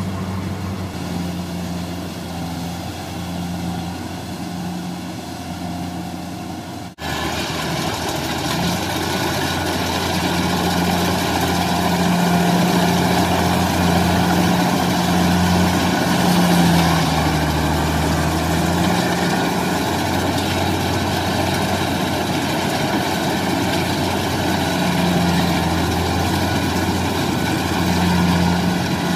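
Combine harvester's diesel engine running steadily under load as the machine labours through deep, waterlogged mud. The engine note sags briefly in the middle. About seven seconds in there is a sudden break, after which it is louder.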